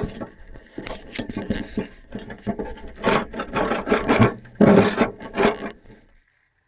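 Scraping and scrubbing at caked grime on an excavator, in irregular rough strokes that stop abruptly shortly before the end.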